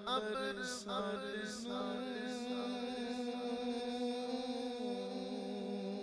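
A man singing a devotional naat unaccompanied, in ornamented, gliding phrases that settle into long held notes, over a steady low hum.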